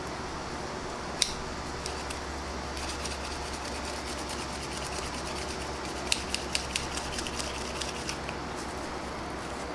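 Small metallic clicks and faint scraping from a stiff, rusted folding pocket knife blade being worked back and forth at its pivot: a sharp click about a second in, then a quick run of clicks a few seconds before the end. A steady low hum runs underneath.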